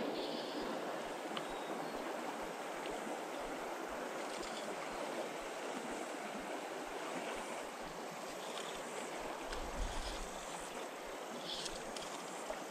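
Steady rush of a small creek's flowing water.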